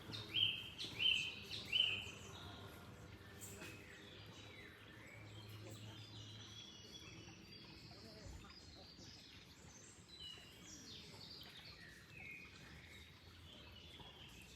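Songbirds chirping: three loud, short calls in the first two seconds, then many softer chirps and twitters overlapping, over a faint steady background noise.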